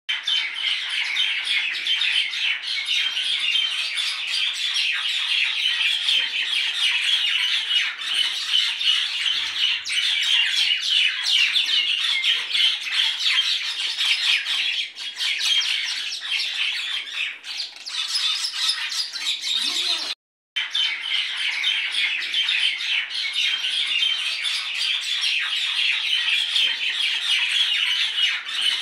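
A flock of birds chattering and squawking in a dense, steady chorus, cutting out for a moment about two-thirds of the way through.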